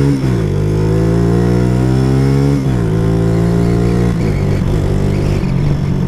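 Suzuki GN125's single-cylinder four-stroke engine revving hard under full acceleration. Its pitch climbs in each gear and drops at an upshift right at the start, again about two and a half seconds in, and again about four seconds in.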